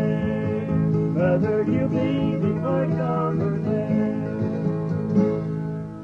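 Country song with acoustic guitar, fading out near the end.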